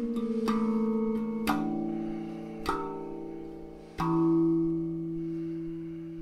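Rammerdrum music: a slow melody of single struck notes, each ringing on after the strike. The last note, struck about four seconds in, is the loudest and slowly fades away.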